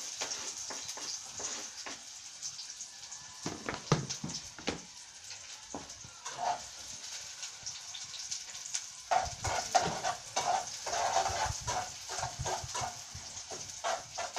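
Finely chopped onion and a whole garlic clove frying in hot oil in a pot, a steady sizzling hiss with occasional knocks of a utensil against the pot. From about nine seconds in, the stirring and clatter get busier.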